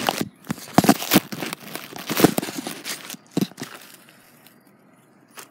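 Phone handling noise: fingers and hand rubbing and knocking against the phone close to its microphone as it is positioned, a run of rustles and knocks that dies away about three and a half seconds in.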